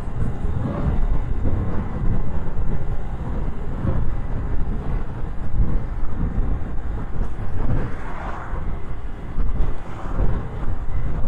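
Wind rumbling and buffeting on a lapel microphone while riding in traffic, with steady road noise underneath. The vehicle's own engine and exhaust are barely heard.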